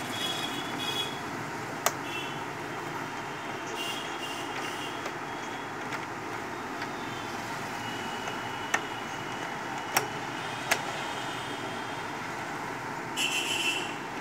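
Butterfly JHQ3010 electric sewing machine stitching cloth in short runs, near the start, about four seconds in and again near the end, over a steady background noise, with a few sharp clicks in between.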